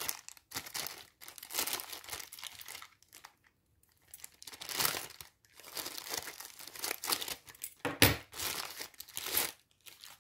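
Plastic poly mailer bag crinkling and rustling in the hands as it is cut open with scissors and the contents pulled out, in irregular bursts with a short pause about three seconds in and a sharper rustle near the end.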